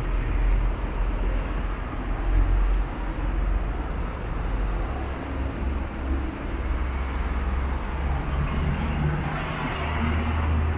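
Yamaha FJR1300A's inline-four engine idling steadily.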